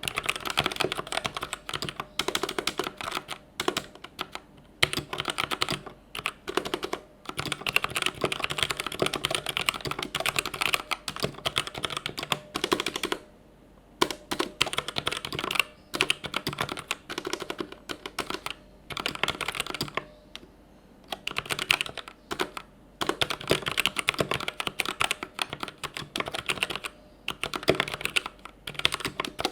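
Typing on a Vortex VX5 60% mechanical keyboard with Outemu Red linear switches: fast, dense runs of keystrokes with brief pauses about 13 and 20 seconds in.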